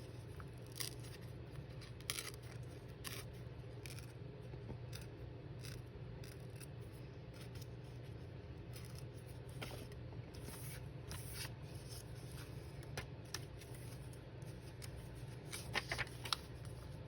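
Scissors snipping and handling thin copy paper: scattered light snips and rustles, a little denser near the end.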